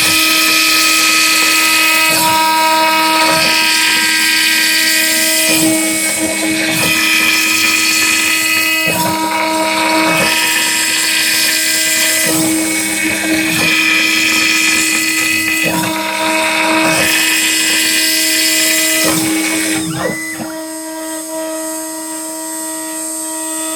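Homemade CNC router cutting solid wood with a 5 mm wood end mill. The spindle whines steadily, the stepper motors sing in tones that change every second or two as the axes move, and a hiss comes from the cutting. About 20 seconds in, the cutting hiss stops, leaving the spindle and motor tones.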